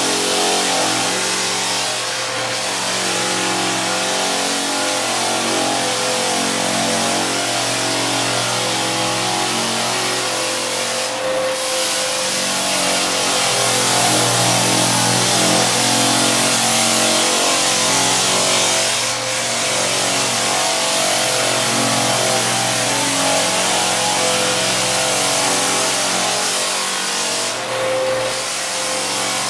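Clark floor sanding machine taking the polyurethane finish off a hardwood floor, with a dust-containment vacuum running steadily alongside: a loud, continuous motor hum over a hiss. The sound dips briefly a few times.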